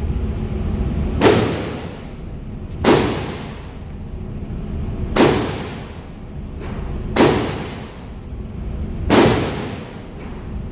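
Five gunshots, spaced about two seconds apart, each with a short ringing decay, over a steady low rumble.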